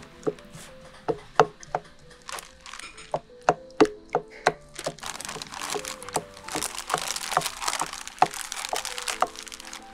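Wooden spatula mixing soft butter inside a plastic bag in a glass bowl: a run of sharp taps and knocks of wood against glass in the first half, then several seconds of plastic bag crinkling.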